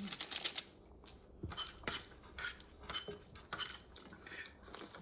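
Eating utensils clinking and scraping against a bowl in a run of short, irregular clicks, busiest in the first second.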